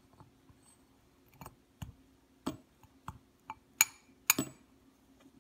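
Metal spoon clinking and tapping against a ceramic bowl: about seven separate light clicks, the two loudest about four seconds in.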